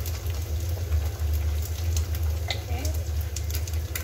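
Egg and onions frying in a pan, a light sizzle with scattered crackles, over a steady low hum.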